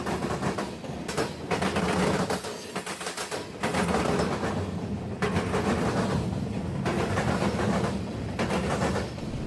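Freight train cars rolling over a railroad diamond crossing, the steel wheels clattering and banging over the crossing's rail gaps in uneven surges.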